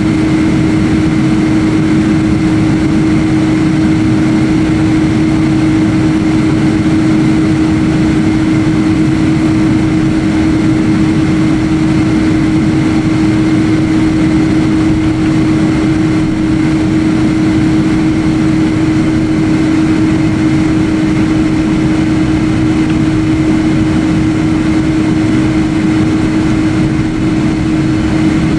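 Jet airliner's engines and airflow heard from inside the passenger cabin as a loud, steady drone, with a constant low hum and a fainter high whine over it.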